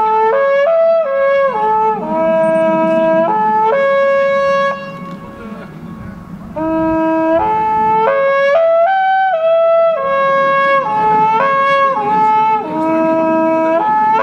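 Midwinterhoorn, a long wooden horn blown with the lips, playing a tune of held notes that step up and down. It plays in two phrases, with a pause of about two seconds around five seconds in.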